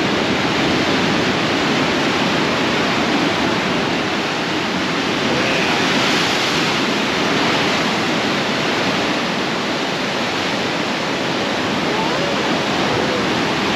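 Strong wind buffeting the GoPro microphone over the rush of ocean surf surging through a rock chasm, a steady loud roar that swells a little midway.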